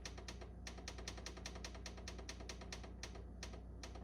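Stove timer control being set, clicking rapidly at about six clicks a second, the clicks spacing out near the end.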